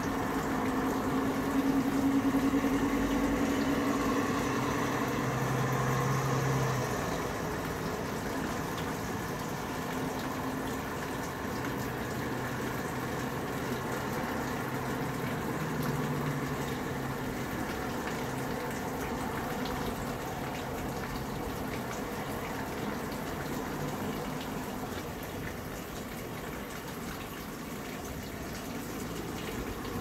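Tap water running steadily. Under it is the low hum of passing vehicle engines, strongest in the first several seconds and again around the middle.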